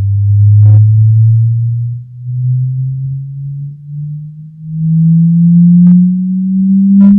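Pure test tone from the home-theatre speakers and subwoofer, sweeping slowly upward from about 100 Hz to about 200 Hz; its loudness swells and dips as the pitch climbs. It is a buzz-and-rattle sine sweep used to check the system's bass response in the room.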